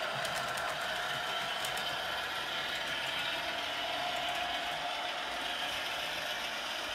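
HO scale model train running on sectional track: a steady whirr of the locomotive motors and gears, with a few light clicks of the wheels over rail joints in the first two seconds.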